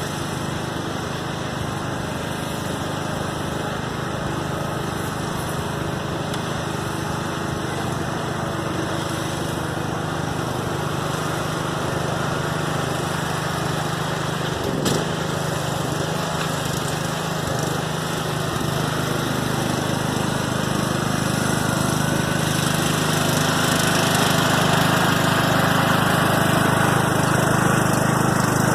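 Riding lawn mower engine running steadily, getting a little louder toward the end, with one sharp knock about halfway through.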